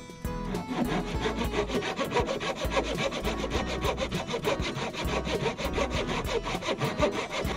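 Hand saw cutting through hard wood with continuous scraping strokes.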